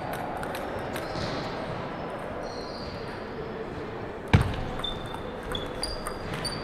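Table tennis rally: light clicks of the celluloid ball off paddles and table, with short high squeaks in the second half and one loud thump about four seconds in.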